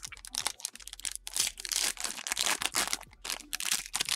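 Foil wrapper of a Panini Ascension basketball card pack crinkling and tearing as hands rip it open: a rapid, irregular run of crackles.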